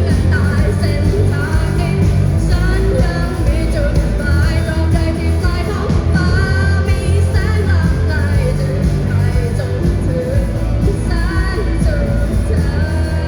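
Live rock band playing a song with a singer over a heavy, steady bass line.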